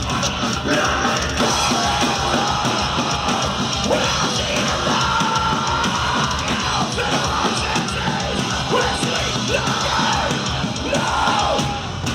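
Heavy metal band playing live at full volume, with a yelled vocal over rapid, driving bass-drum beats, heard from within the crowd.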